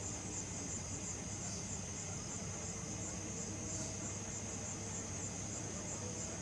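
Crickets chirping in a steady, high, evenly pulsing trill, over a faint low hum.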